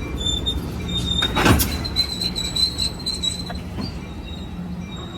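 Train sounds: a steady low hum with thin high squeals, and one loud clank about a second and a half in.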